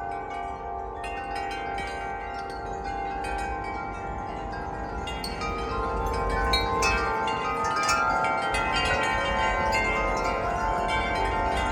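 Wind chimes ringing in the wind, with many overlapping notes struck over and over. The strikes grow busier and louder about halfway through as a gust picks up.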